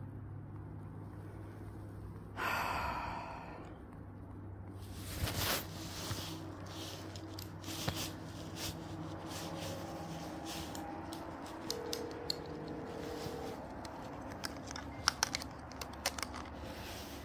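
Phone being handled, with scattered sharp clicks and taps, the loudest near the end, and a short breath-like rush about two and a half seconds in. Near the middle, a single ringback tone of about two seconds plays over the speakerphone as an outgoing call rings.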